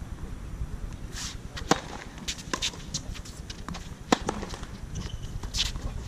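Tennis ball struck by racquets during a rally on a hard court, with sharp hits about a second and a half in and about four seconds in. Fainter hits, footsteps and short shoe scuffs on the court come between them.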